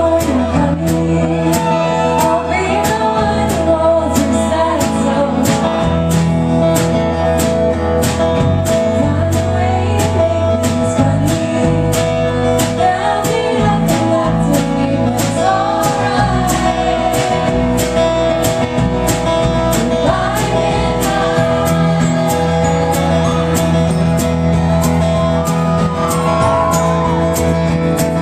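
Live indie-folk band playing: strummed acoustic guitar, a held keyboard chord and singing over a steady percussion beat.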